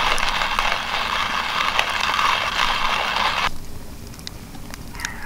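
Hand-cranked coffee grinder grinding coffee beans: a steady gritty crunching that cuts off suddenly about three and a half seconds in.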